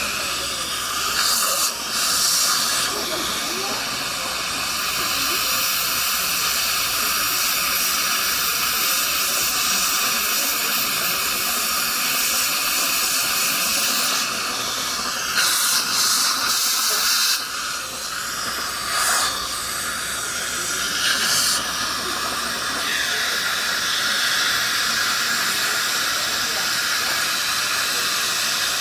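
Steady hiss of dental suction during a tooth restoration, with a few louder bursts of air lasting about a second each.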